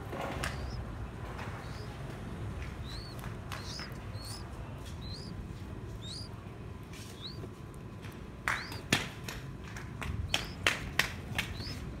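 A string of short, high chirps, each rising then dropping, about one or two a second, from a young common cuckoo nestling begging in the nest. A few sharp taps, the loudest sounds, come in a quick cluster in the second half, among the chirps.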